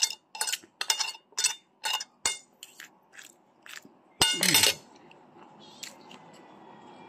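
Metal spoon and fork clinking and scraping against a plate, a quick run of sharp ringing clicks, two or three a second. About four seconds in a louder clink and burst comes as a spoonful goes into the mouth, followed by a quiet steady background.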